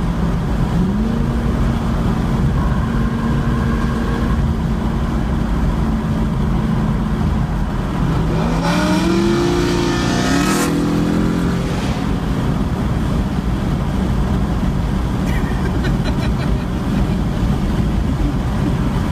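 Modified 6.2 L LS3 V8 of a 2015 Chevrolet SS, with a Stage III cam and catless long-tube headers, running with a steady deep exhaust rumble. About nine seconds in the pitch climbs briefly, with a rush of hiss, as in a short rev, then settles back.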